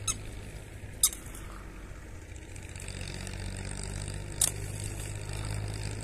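Steady low hum of a distant engine running, with two sharp clicks, one about a second in and another about four and a half seconds in.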